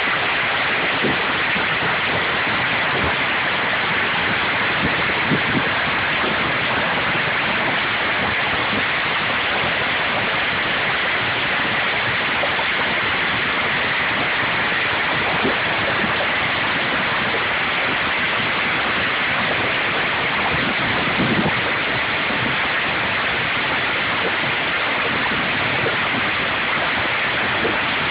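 Hailstorm with hailstones mostly the size of golf balls and some as big as cricket balls: a dense, steady rush of stones striking, with a few louder single knocks standing out now and then.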